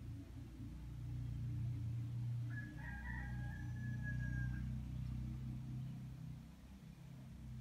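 A rooster crows once, one drawn-out call of about two seconds midway through, over a steady low hum.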